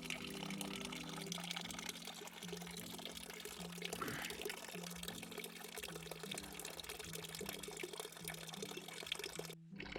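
Water trickling and splashing steadily into a small garden pond, the outflow of a DIY gravel bog filter. It cuts off abruptly near the end.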